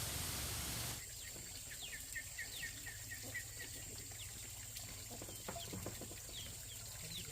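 A steady hiss that cuts off about a second in, then birds chirping: a quick run of short repeated chirps, followed by scattered downward-sweeping calls over a steady low hum.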